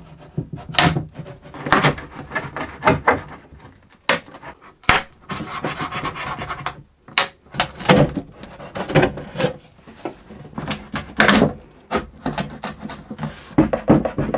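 A butter knife worked into the glued seam between a cello's back and ribs, prying the back off: irregular sharp cracks and clicks as the glue joint gives way, with stretches of the blade scraping along the seam.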